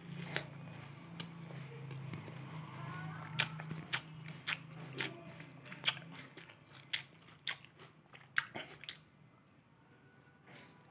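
Close-up eating of grapes: a string of crisp, sharp bites as the skins pop, with chewing in between.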